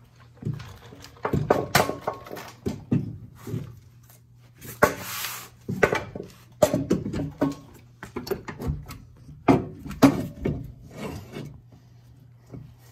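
Irregular clunks, knocks and scrapes of a Honda Civic-type rear trailing arm with its hub being lifted and worked into place against the lower control arm, metal parts knocking and rubbing together, with one longer scrape about five seconds in.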